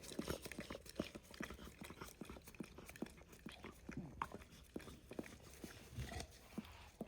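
A husky licking at a pup cup, a quick, irregular run of faint wet smacks and clicks of tongue and mouth.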